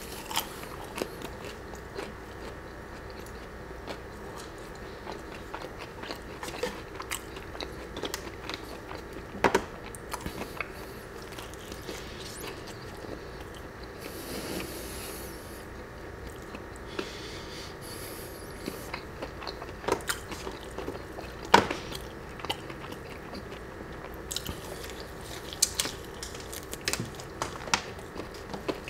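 Close-miked chewing and biting of waffle fries with ketchup and a fried chicken tender: wet mouth sounds and soft crunches, with scattered sharp clicks.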